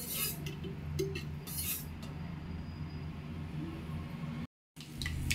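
Cooking oil being poured into a nonstick kadai, with light clinks of the glass oil container against the pan, over a low steady hum. The sound cuts out for a moment near the end.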